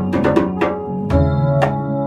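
A live band playing an instrumental passage: sharp drum kit hits over held low bass and keyboard notes, with electric guitar.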